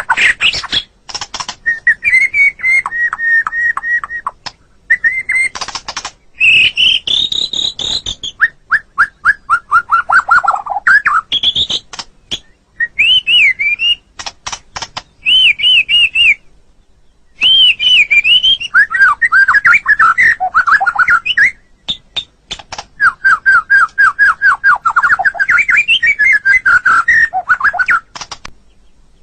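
White-rumped shama (murai batu) singing a long, varied song. It runs through phrases of fast repeated whistled notes, rising and falling whistles and quick trills, with short pauses between phrases.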